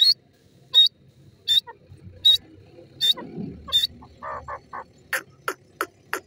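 Grey francolin calling: sharp, high notes repeated about every three-quarters of a second, then softer lower notes and a quicker run of clipped notes in the second half.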